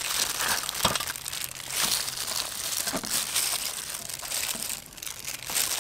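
Irregular crinkling and crackling as a hand in a disposable plastic glove picks up crispy breaded fried chicken legs, dips them in sauce and stacks them on the plate.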